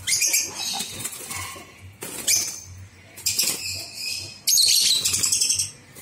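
Lovebirds fluttering and beating their wings inside a wire cage as a hand reaches in to catch one, in about four loud bursts, the longest near the end.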